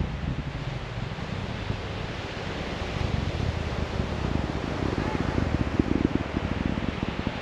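Distant Falcon 9 rocket engines heard from the ground as a low rumble that turns crackly and swells from about four seconds in.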